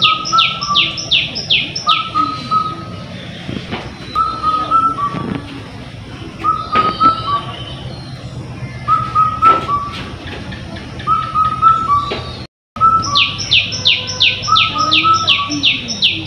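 Birds singing. Runs of quick, high, falling whistled notes, about four a second, come at the start and again after a short dropout near the end. Underneath, a lower two-note call repeats about once a second.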